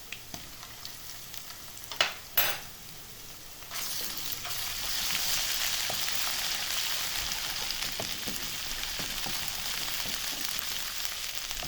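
Food frying in hot oil in a cooking pot. A faint crackle and two sharp clinks about two seconds in, then a loud sizzle starts suddenly near four seconds in and keeps going steadily.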